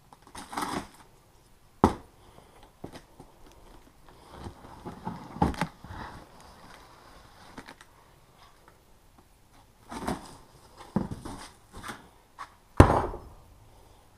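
Large cardboard box being cut open with a knife: scattered scrapes, rustles and knocks from slicing and pulling at the taped cardboard flaps. There is a sharp click about two seconds in and a heavy thump near the end.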